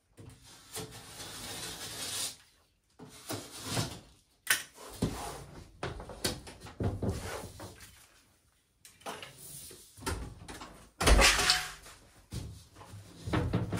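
Sheets of plasterboard being handled and set in place: irregular scrapes, rubs and knocks of the boards against the floor and wall, the loudest a heavy scrape about eleven seconds in.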